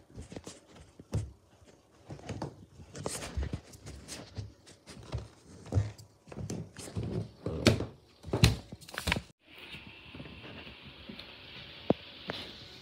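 Irregular soft thumps of footsteps on carpeted stairs, mixed with handling knocks. About three-quarters through they cut off suddenly, and a steady high hiss with a few faint clicks follows.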